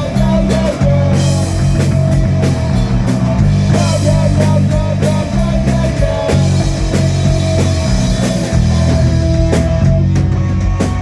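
A live rock band playing an instrumental passage with no vocals: a lead line with wavering, bent notes over bass and a drum kit keeping a steady beat.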